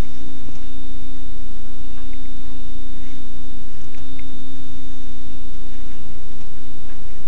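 A steady electrical hum: one constant low tone and a fainter high whine over loud, even hiss, with a few faint ticks.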